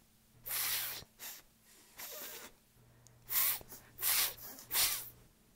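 A woman blowing about six short, breathy hissing puffs through her mouth, at irregular intervals.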